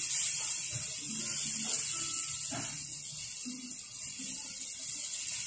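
Beef steak sizzling on a hot stone plate, a steady high hiss as it is being cut.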